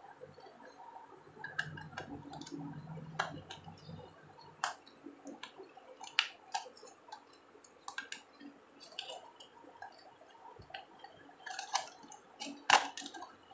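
Snap-off utility knife blade prying along the glued seam of a plastic power adapter case, with irregular small clicks and cracks as the plastic halves give way, and faint scraping between them.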